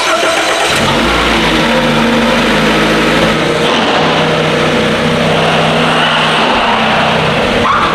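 An engine running steadily at a loud level under a dense rushing noise, its low hum shifting slightly about three and a half seconds in.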